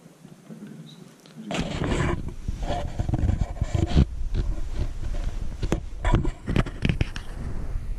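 Handling noise on the camera's microphone: a low rumble with irregular rubbing and knocking, starting about one and a half seconds in as the camera is moved around.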